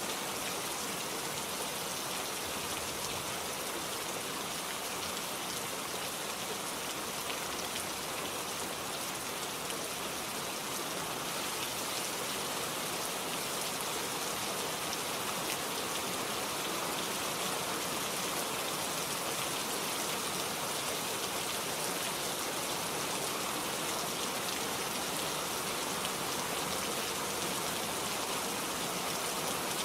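Steady rain falling in a forest, an even, unbroken hiss of drops.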